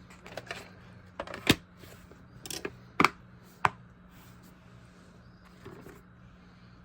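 Hard plastic clicks and knocks from handling a VHS tape and its case: several short sharp taps in the first four seconds, the loudest about three seconds in, then only faint handling.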